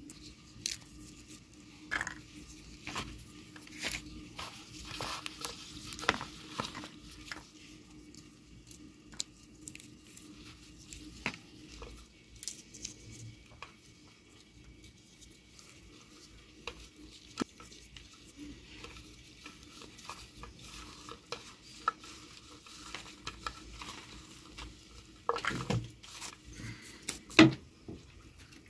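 Fresh broad beans being shelled by hand: pods snapping open and beans dropping into a ceramic bowl as a string of small clicks and taps, thick in the first half and sparser later. A few louder knocks near the end as the bowl and a plastic water bottle are handled.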